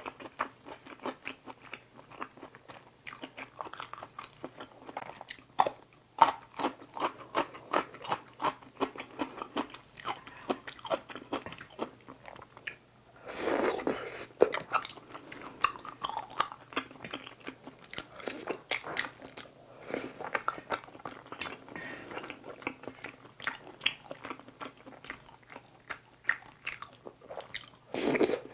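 Close-miked chewing of tteokbokki rice cakes and fish cakes in spicy sauce: quick, wet mouth clicks and smacks repeating steadily. A louder burst comes about halfway through and again near the end, as more food goes into the mouth.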